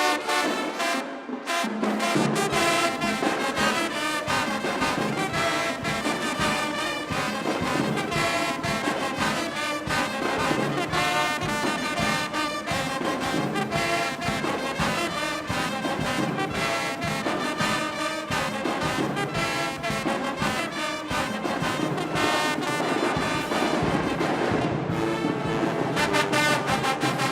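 Marching band playing, a loud brass section of trombones and trumpets holding chords over a steady drum beat, with the low brass coming in about two seconds in.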